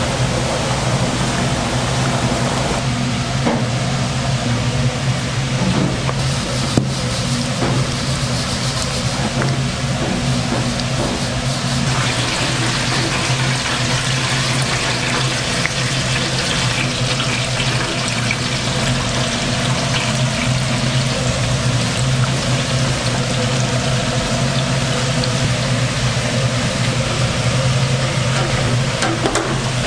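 Steady restaurant-kitchen noise: a constant low hum under an even hiss like running water.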